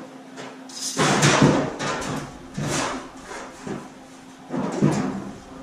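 Large aluminium sheet-metal body shell being shifted by hand, sliding and scraping against its frame in three bursts, the first and longest about a second in, over a steady low shop hum.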